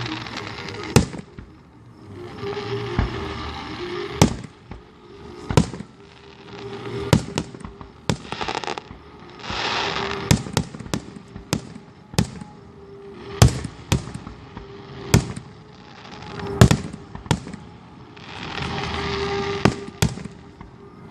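Aerial fireworks bursting overhead: more than a dozen sharp bangs at irregular intervals, with stretches of steady hiss lasting a second or two between some of them.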